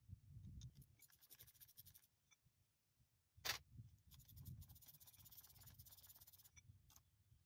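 Faint scraping and rubbing of rusty Model T drive-shaft and torque-tube parts being handled, in two short stretches, with one sharp metallic knock about three and a half seconds in.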